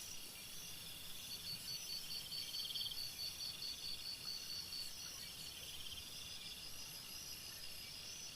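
Chorus of insects chirping and trilling: a high pulsing call at about four pulses a second runs from about one to four and a half seconds in, while buzzy trills come and go under a steady high ringing.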